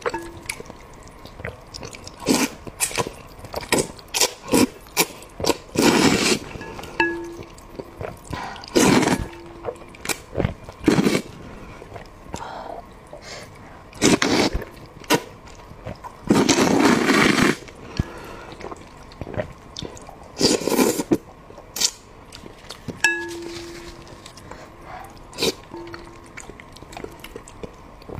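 Close-miked eating sounds: wet chewing and lip smacks with irregular sharp clicks and clinks of utensils, and a longer noisy stretch of about a second near the middle.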